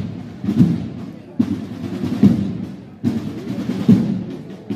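Procession drums beating a slow, steady march, a heavy beat roughly every second with rolling in between.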